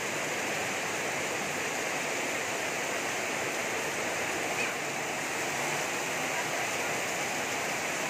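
Torrential rain pouring onto a flooded street, a steady, unbroken hiss of water.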